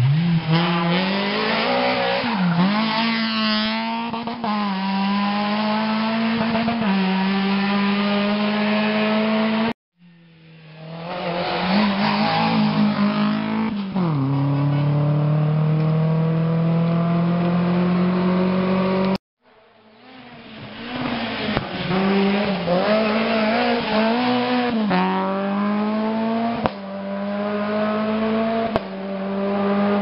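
Rally cars at full throttle on a special stage: three separate passes, each engine revving hard with rising and falling pitch through gear changes, then holding a steadier note. Each pass is cut off suddenly, about ten and nineteen seconds in.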